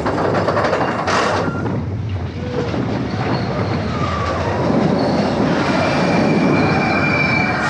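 Ride train rolling along its track: steady rumble and clatter of the wheels, with brief wheel squeals, one drawn out near the end.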